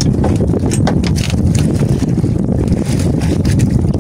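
Steady low rumble of wind buffeting the microphone aboard an outrigger fishing boat, with scattered light clicks.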